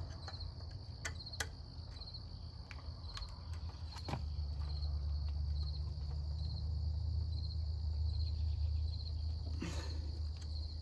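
Crickets chirping steadily in even, repeating pulses, with a few sharp clicks and knocks of hand work on a CRT television set. A low rumble rises about four seconds in.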